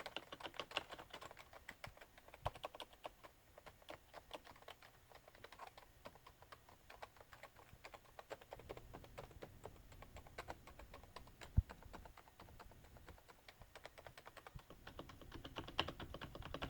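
Vigorous, fast typing on a Topre silent keyboard: a dense run of muted key clicks, with one louder low thud a little past the middle.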